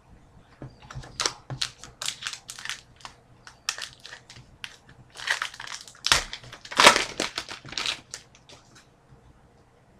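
Trading card pack wrapper being handled, torn and crumpled, with irregular crinkling crackles that are loudest about seven seconds in and stop about a second before the end.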